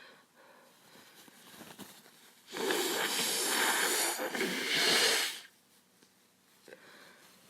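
A woman with a cold blowing her nose hard: a long noisy rush of air in two pushes lasting nearly three seconds.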